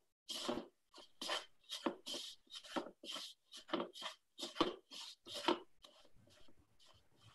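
Rice paddle stirring a still-dry, chunky flour-and-water dough in a plastic mixing bowl: rhythmic scraping strokes about two a second, fading out near the end.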